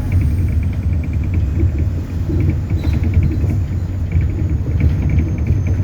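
Interior ride sound of an ADL Enviro400 Hybrid double-decker bus on the move: a steady low drivetrain and road rumble, with a faint thin whine that slowly falls in pitch and a light fast ticking high above it.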